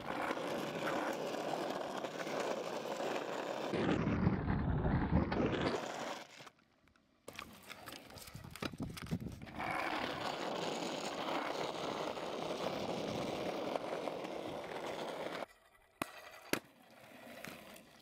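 Stunt scooter wheels rolling over rough asphalt, a steady grinding noise in two long runs with a short break between them. Sharp clacks, as of the scooter landing or hitting the ground, come about seven seconds in and twice near the end.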